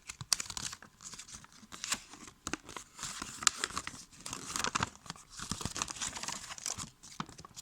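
Packaging being handled, paper or plastic crinkling and rustling, with irregular small clicks and taps.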